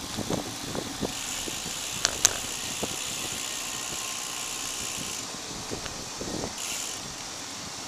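Riding noise picked up by a handlebar-mounted camera on a road bicycle: a steady hiss of tyres on the paved path and air rushing past, with two sharp clicks a little after two seconds in and a few light knocks. The hiss eases a little after about five seconds.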